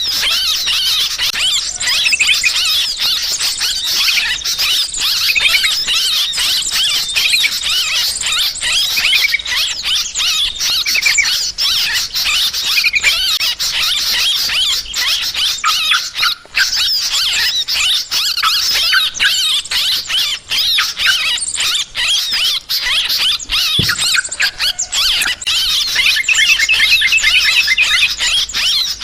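A dense, noisy chorus of yellow-vented bulbuls (trucukan) chattering in rapid, overlapping agitated calls, mixed with small birds. It is a bird-trapping lure recording.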